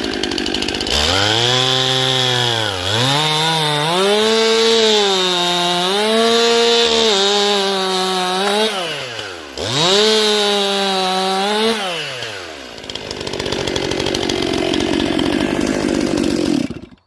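Chainsaw running at high revs through a cut, its pitch sagging and recovering under load. The revs drop sharply about three seconds in and again about ten seconds in. After about twelve seconds the engine note falls away, leaving a steady hiss. The saw cuts easily, 'like butter'.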